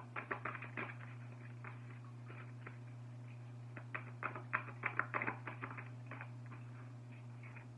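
Oracle cards being handled: quick runs of soft clicks and flicks, one near the start and a busier one about four to five seconds in, over a steady low hum.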